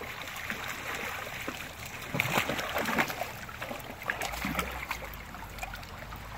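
Shallow river water running and rippling past a log, with a few small splashes and clicks about two to three seconds in. A low rumble comes in about four seconds in.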